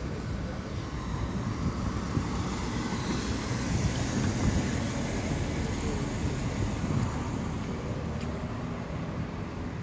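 Steady outdoor street noise: wind buffeting the microphone over the hum of road traffic, swelling a little in the middle.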